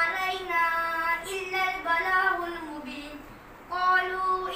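A child's voice chanting in long, drawn-out sung phrases with gliding pitch, in the melodic style of Quran recitation, breaking off briefly a little after three seconds and starting again.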